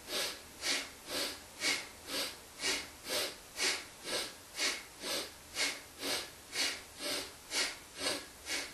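A person breathing rapidly and rhythmically through the nose during a kundalini yoga exercise, inhaling and exhaling in an even beat of about two breaths a second.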